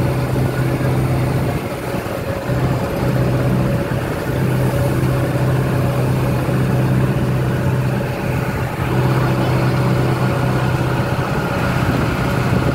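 Engine of a monster-truck school bus running as it drives along, heard from on board: a loud, steady drone of unchanging pitch that eases briefly about two seconds in and again around eight seconds.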